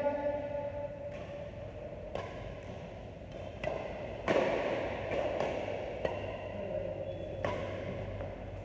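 Badminton rackets striking a shuttlecock during a rally: about six sharp hits at uneven intervals.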